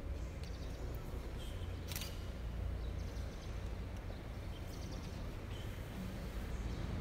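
Quiet church room tone: a steady low rumble with a few faint high chirps and a single sharp click about two seconds in.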